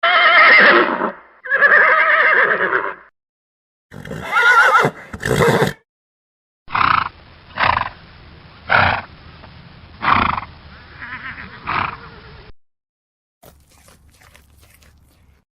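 Horses whinnying: two long wavering calls, then two more after a short gap. A run of about six shorter calls follows, and faint ticks come near the end.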